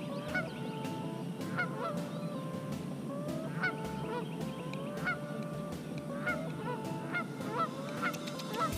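A flock of geese honking over and over, many short calls overlapping each other, with several birds calling at once.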